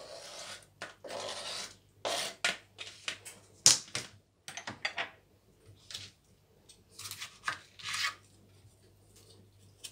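Kitchen knife scraping diced tomato off a plastic cutting board into a plastic bowl, in a string of short scrapes and knocks, with one sharp clack about three and a half seconds in. Near the end the knife cuts into a whole tomato on the board.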